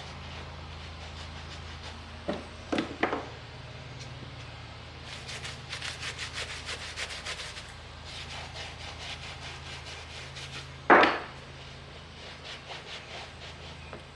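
Quick back-and-forth rubbing strokes on a leather ball glove, about four or five a second, in several runs. A few sharp knocks are heard, the loudest about eleven seconds in.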